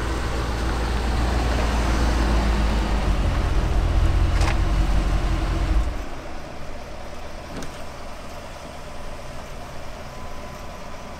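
A pickup truck's engine running: a steady low rumble that drops off sharply about six seconds in. A sharp click comes about midway, and a fainter one a couple of seconds later.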